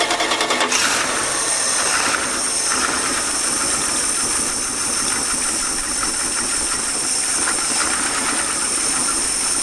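1977 Dodge D150 pickup's engine running after a cold restart from long storage, unevenly and not yet warm. About a second in a loud steady hiss comes in over the engine noise and holds.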